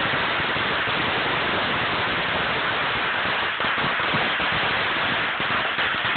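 A very long string of firecrackers going off as one dense, continuous crackle, the pops too close together to tell apart, holding a steady level.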